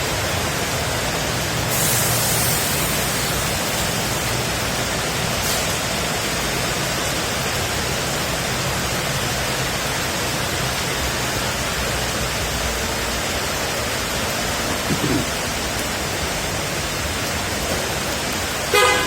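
Heavy rain falling, a steady hiss, with a faint low hum under it in the first half. A brief pitched toot sounds near the end.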